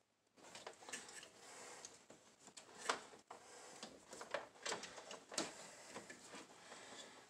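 Irregular plastic clicks and knocks of a circuit breaker being worked loose and pulled from a breaker panel, with a louder click about three seconds in.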